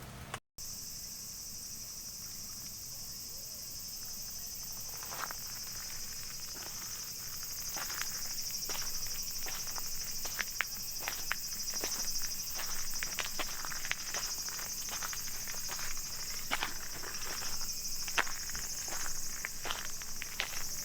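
Steady, shrill chorus of insects. From about five seconds in it comes with many irregular light ticks and taps.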